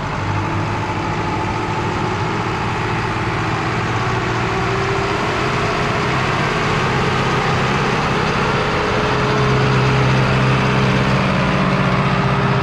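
Zetor tractor's diesel engine working steadily as it tows a loaded two-axle trailer of potatoes out of a field. The engine gets louder about two-thirds of the way through as the tractor comes closer.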